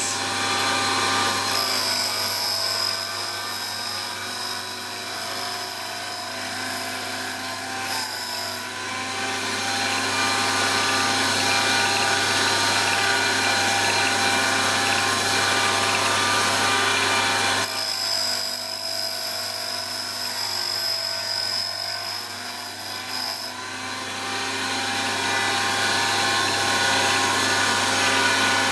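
Wolf Precision Valve Refacer running: its motor hums steadily while the spinning grinding wheel grinds the face of a slowly turning exhaust valve, recutting it to a 30-degree face to remove a worn step. A thin high whine drops out for several seconds in the middle and then returns.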